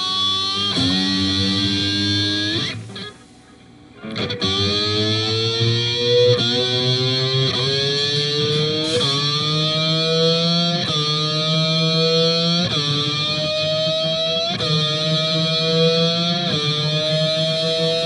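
Distorted electric guitar played with a glass slide, imitating a Formula 1 engine revving through the gears. Each slide glide climbs in pitch, drops back and climbs again, about every two seconds. After a short break about three seconds in, the glides imitate a naturally aspirated V8 rather than the V6 turbo.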